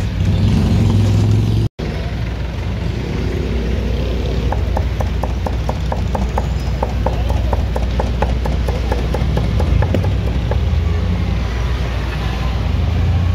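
Cleaver chopping grilled pork on a thick wooden chopping block in quick, even strokes, about five a second for several seconds, over steady street-traffic noise.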